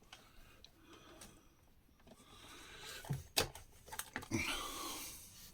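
Faint handling noises from an opened-up radio's parts: a few sharp clicks and knocks about halfway through, with light rustling and scraping.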